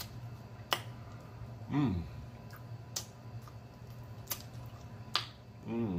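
Close-up eating sounds from a man biting and sucking at a sauced chicken wing: a few sharp, wet mouth smacks about a second apart, with a short hummed "mm" about two seconds in and another starting near the end.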